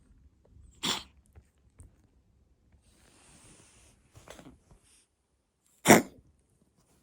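Cat coughing in three short, sharp hacks, the loudest about six seconds in, with a faint hiss between them. This is the cough of a cat with allergic asthma.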